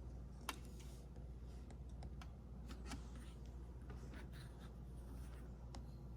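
Faint room tone with a steady low hum and scattered small clicks and ticks, the sharpest about half a second in and again about three seconds in.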